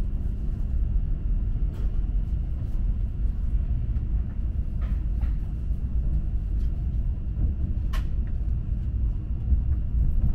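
Steady low rumble of a Shinkansen bullet train heard from inside the passenger cabin as it pulls away from the platform, with a few light clicks through it.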